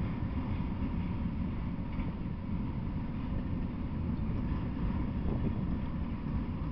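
Freight train of autorack cars rolling past at close range, a steady low rumble of wheels on rails with no distinct rail-joint clicks.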